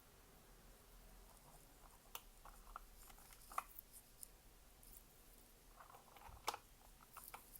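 Mechanical keyboard typing on Ice Lemon linear switches: slow, uneven keystrokes, a dozen or so light clacks, with two louder strikes about halfway and near the end. The keycaps are struck with long false fingernails.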